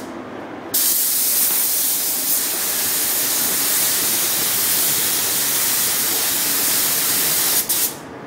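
Gravity-feed paint spray gun hissing as it sprays paint onto a car body: the trigger is pulled under a second in, held steadily for about seven seconds with a brief let-up near the end, then released.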